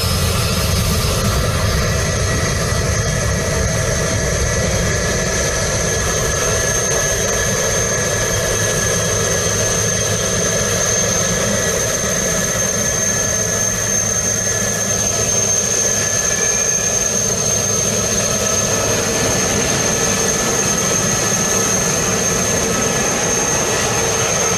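Jet airliner engine noise, a steady deep rumble with a constant high-pitched whine on top that neither rises nor falls.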